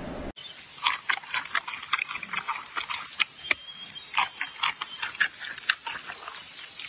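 Giant panda eating, with crisp irregular crunches, about two or three a second, as it bites and chews crunchy food and a bamboo shoot. The crunching starts suddenly about a third of a second in.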